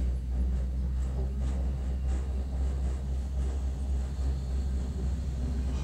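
Steady low rumble inside a moving cable car gondola as it travels along the cable.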